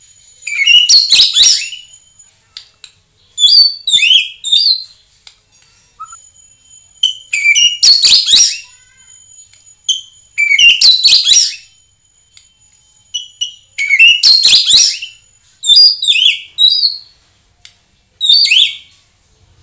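White-rumped shama singing. It sings loud, rapid bursts of rich, sweeping whistled phrases, about seven of them two to three seconds apart, with thin high notes held steady between the bursts.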